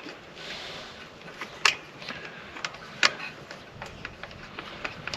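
Light clicks and taps of metal parts being handled while a carburetor is fitted and its mounting bolts are started by hand, with two sharper clicks, one a little under 2 s in and one about 3 s in.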